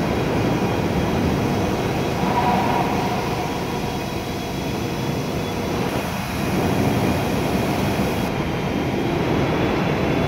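Valve test bench's pump unit running steadily during a high-pressure test, a dense mechanical running noise that stops suddenly at the very end.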